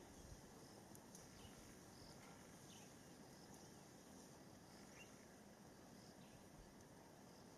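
Near silence: faint outdoor ambience with scattered faint high chirps.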